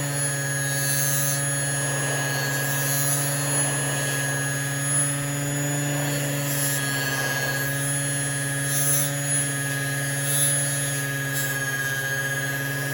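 Motor-driven fiber buffing wheel running with a steady hum, with brief hissy rubbing at several moments as a pocket-knife blade is pressed against it to clean off patina.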